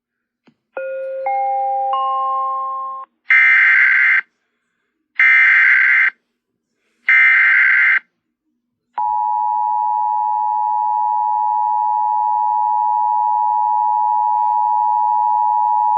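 Emergency Alert System warning tones: a rising three-note chime, then three one-second bursts of SAME data-header screech, then about nine seconds in the steady two-tone EAS attention signal begins, the cue that a new severe thunderstorm warning is about to be read.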